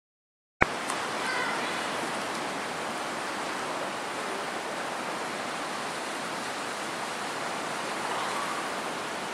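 Steady wash of ocean surf breaking on rocks, cutting in suddenly with a click about half a second in.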